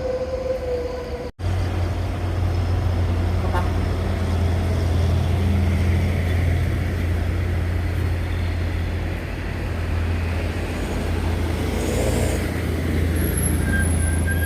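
Heavy road vehicle's engine running with a loud, steady low drone, after a short horn note in the first second. A thin high tone joins near the end.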